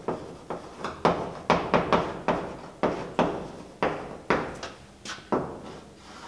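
Chalk writing on a blackboard: a quick, irregular run of sharp taps and short scratches, about two or three strokes a second, as a word is written out and a shape begun.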